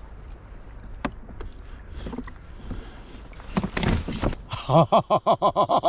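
Water splashing against a kayak as a hooked sea bass is brought alongside, with a flurry of louder splashes about three and a half seconds in. Near the end a loud rapid pulsing sound starts, about six pulses a second.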